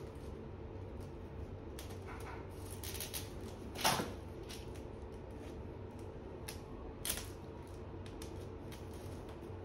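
Packaging being handled while a large cardboard box is unpacked: scattered light rustles and clicks over a steady room hum, with one louder clatter about four seconds in and a smaller one about seven seconds in.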